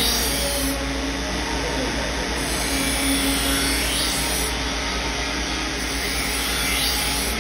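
Steel chef knife blade being ground on a belt-driven grinding wheel: a steady grinding hiss over the constant low hum of the drive.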